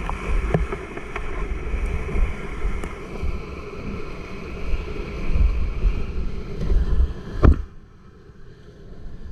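Whitewater rapids rushing around a kayak, with water and wind buffeting a GoPro camera housing into a low rumble. A sharp knock comes near the end, after which the rushing is quieter.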